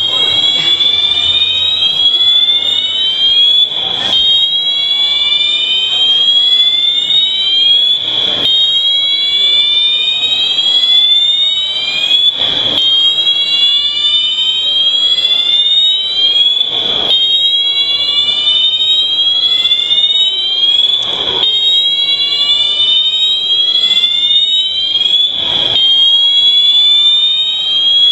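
Mall fire alarm system sounding loudly: a high tone that sweeps upward over and over, restarting about every four seconds.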